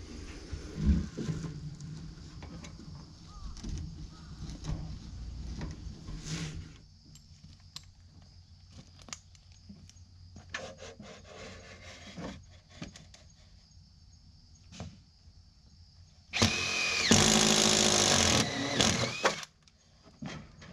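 Power drill run in one burst of about three seconds near the end, its motor pitch dropping as it winds down. Before it come scattered knocks and clicks over a low rumble.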